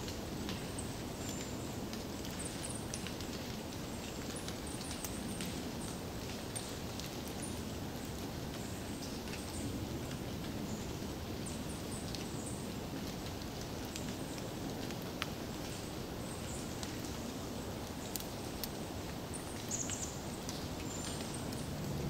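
Forest ambience: a steady low rush of background noise with irregular small ticks and taps scattered through it, and a few faint high chirps, the brightest a little before the end.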